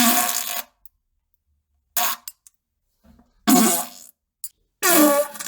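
A string of fart sounds: four loud, buzzy blasts a second or so apart, with dead silence between them, some sliding down in pitch.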